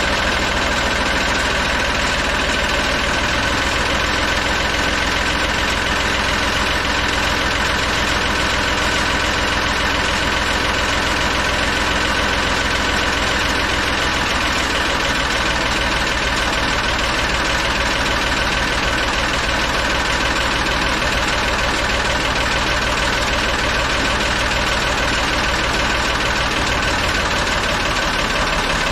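Tractor-loader backhoe engine idling steadily.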